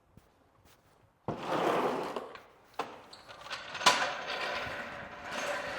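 Scraping and rubbing of hands and tools working on a car's front end, in stretches, with a sharp clack about four seconds in.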